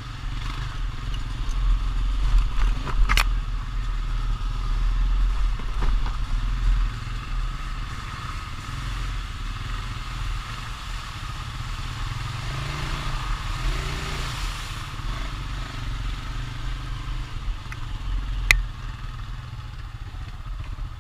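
ATV engine running, with the rumble swelling in the first few seconds and then settling. Two sharp clicks or knocks come about 3 seconds and about 18 seconds in.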